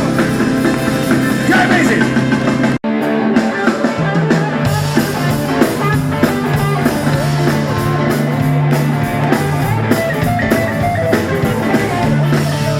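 Live rock and roll band playing electric guitar, bass and drum kit, with no sung words. A little under three seconds in, the sound cuts out completely for an instant, then the band comes straight back in.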